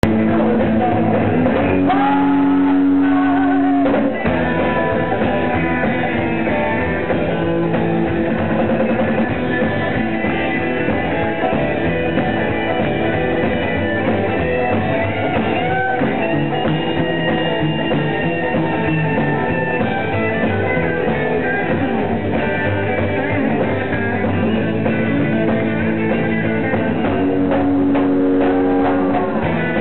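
Live rock'n'roll band playing with upright double bass, drum kit and electric guitars, with long held chords near the start and near the end.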